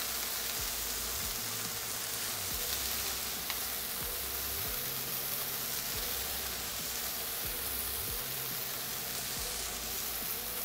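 Cubed chicken breast sizzling in a frying pan with very little oil over a gas flame: a steady hiss, with a faint click or two as pieces are picked out.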